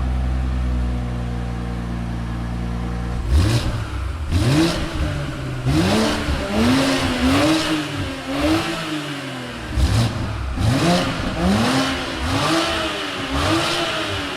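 BMW X6's engine idling steadily for about three seconds, then blipped through a quick run of short free revs, each rising and falling in pitch, about two a second.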